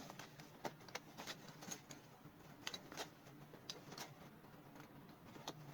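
Faint, scattered clicks and light rustling of small items being handled, over a quiet room.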